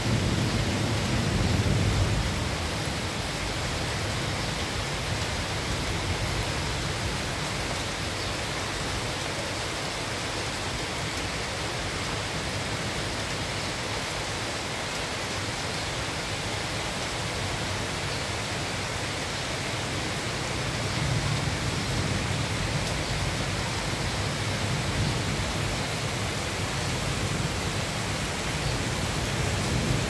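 Steady rain falling on leafy garden shrubs and trees, an even hiss. A low rumble swells briefly near the start and again about two-thirds of the way in.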